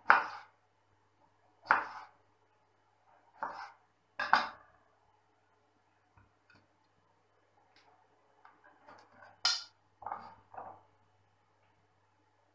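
Kitchen knife cutting tomatoes and knocking on a wooden chopping board: four separate chops in the first half, then a quiet pause. This is followed by a sharper clink as a white ceramic plate is set on the board, and two more knocks.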